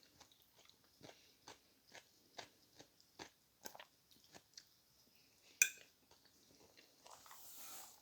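Close-miked chewing and mouth sounds of a person eating, a string of short wet clicks about two or three a second. About five and a half seconds in comes one sharper, louder click, and near the end a soft rustle.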